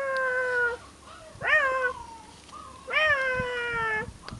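Chihuahua puppy whining: three drawn-out, high cries, each jumping up in pitch and then sliding slowly down. The first is already sounding and stops under a second in; the others come about one and a half and three seconds in, the last lasting about a second.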